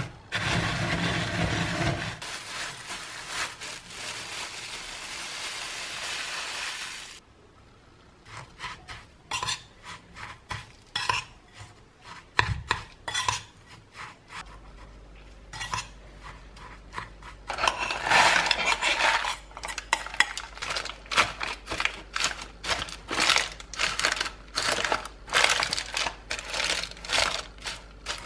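Oreo cookies in a plastic bag crunching and crinkling as a bowl presses them down, a steady noise that stops about seven seconds in. Then a metal spoon clinks and scrapes against a bowl of crushed Oreo crumbs, in many quick taps that grow busier about halfway through.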